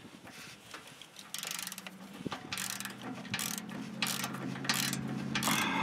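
Socket ratchet clicking in short bursts, about six back-and-forth strokes, as it tightens an exhaust flange bolt at a new muffler. A low steady hum runs underneath from about a second and a half in.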